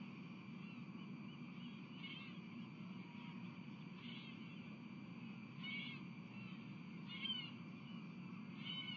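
Osprey giving a series of short, high chirping calls, one about every second and a half, the later ones louder, over a steady low background rumble.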